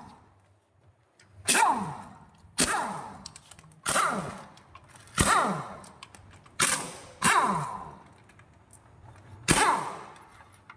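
Metal struck sharply seven times at uneven intervals. Each blow rings briefly and fades, falling in pitch.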